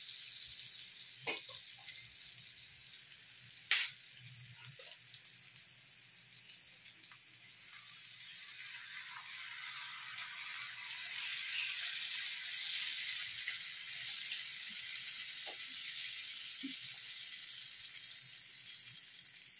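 Garlic and onion sizzling in melted butter in a pan; from about eight seconds in, Sprite is poured into the hot butter and the sizzling and bubbling grow louder and stay loud as the liquid foams. A single sharp click about four seconds in.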